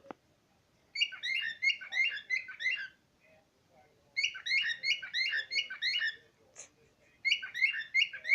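Pet bird calling in three bursts of rapid repeated chirps, about four a second, each burst around two seconds long.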